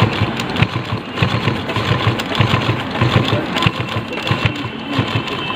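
A large sewing machine running and stitching through thick, jeans-type cloth, with a rapid, repeated clicking of its needle strokes. It sews without breaking the thread, now that a genuine needle is fitted.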